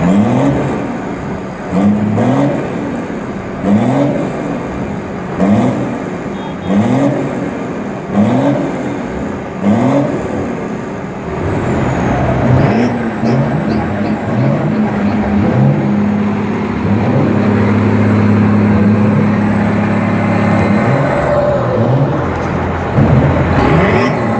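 Farm tractor diesel engines being revved hard: repeated rising blips about every one and a half to two seconds, then held at high revs for several seconds before more blips near the end.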